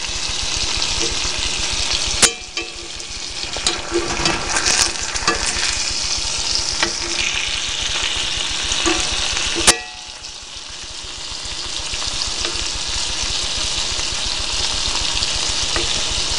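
Salmon pieces sizzling as they fry in hot canola oil in a pot, a steady loud hiss. Two sharp knocks, about two seconds in and near ten seconds in, come as the pieces are turned over.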